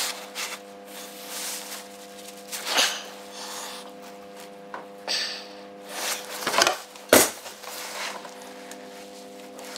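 Scraping, rubbing and clunks of a tight toothed rubber timing belt being forced by hand over a Volvo 940's camshaft pulley, with one sharp knock about two-thirds of the way through.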